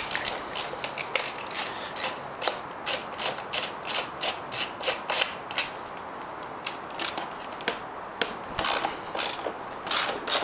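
Ratchet wrench clicking in short back-and-forth strokes while a subframe bolt on a dirt bike is undone. The clicks come fast and close together for the first half, then thin out into scattered strokes.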